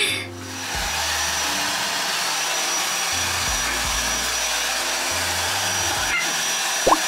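Hand-held hair dryer switched on and blowing steadily on a wet dog's coat, with a thin high whine in its rush of air. A short rising squeak sounds near the end.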